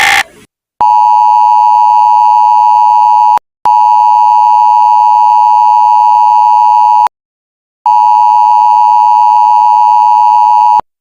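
Electronic alert tone: three long, steady single-pitch beeps of about three seconds each, with short silent gaps between them, each starting and stopping abruptly.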